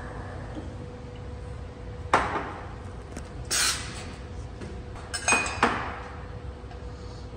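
Metal milk pitchers clinking against each other and the espresso machine: one sharp clink, then a short steam hiss from the steam wand being purged, then two quick clinks, the second ringing briefly.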